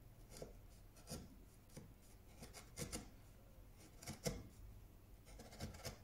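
Chisel paring wood by hand pressure, cutting the internal corners of a shallow hinge recess: faint, irregular crunching scrapes as the edge slices through the fibres.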